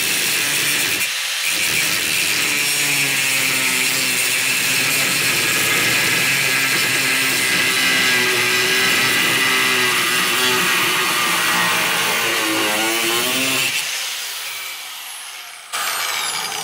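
Milwaukee 4-1/2-inch small angle grinder cutting through a metal threaded rod (all thread), its motor pitch wavering under load, with a short dip about a second in. After about fourteen seconds the load comes off as the cut finishes, and the grinder winds down near the end.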